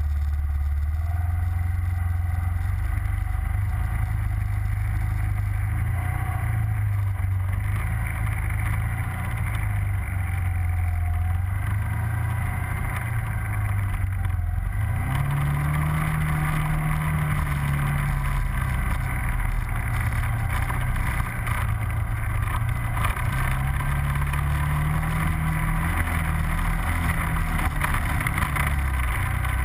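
Engine of an ATV fitted with snow tracks, running steadily under load through deep snow. Its pitch rises about halfway through and swells and falls again later with the throttle.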